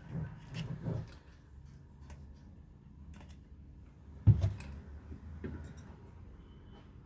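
Starter-motor parts and hand tools being handled during repair: scattered light clicks and taps, a few dull thuds in the first second, and one sharp knock about four seconds in.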